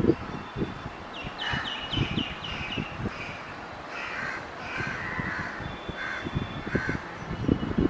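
Crows cawing: a quick run of short calls, then several more spaced-out caws, over low, gusty rumbling of wind on the microphone.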